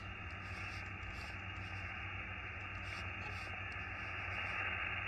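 Receiver hiss from a Xiegu X6100 HF transceiver's speaker in USB mode. It is a steady band noise cut off above about 3 kHz, swelling slightly near the end, with a few faint clicks.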